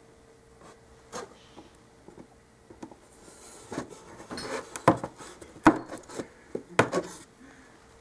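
Hands and a small setting tool working against a foam-core room box as grommets are pushed into tape wire: scattered rubbing and light taps, busier in the second half, with three sharp clicks there.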